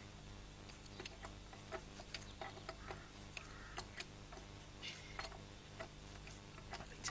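A spanner working loose the rusty holding-down nuts of an old open-crank stationary engine: irregular light metallic clicks and taps, a few every second.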